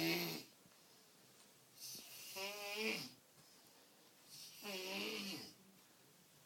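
A man snoring in his sleep: the tail of one snore at the start, then two more snores about two and a half seconds apart, each wavering in pitch, with quiet breathing gaps between.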